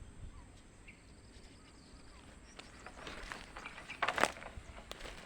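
Footsteps and rustling through brush and dry vegetation, irregular crunches and scrapes building up after a quiet start, loudest about four seconds in, with a sharp click near the end.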